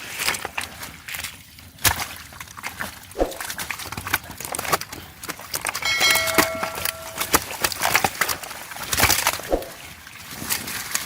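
Water sloshing and splashing as someone works in a river, with many scattered knocks and crackles. Just after the middle a single steady-pitched call sounds for about a second.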